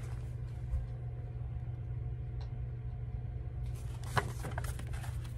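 Steady low background hum with faint steady tones above it, and a short rustle about four seconds in.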